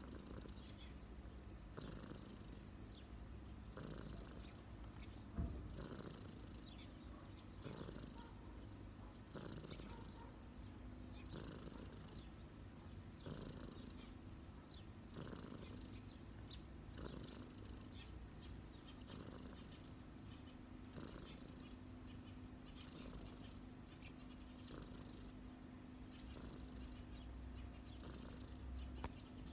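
A cat purring close up, in a steady rhythm of breaths about one every two seconds, with a single brief tap about five seconds in.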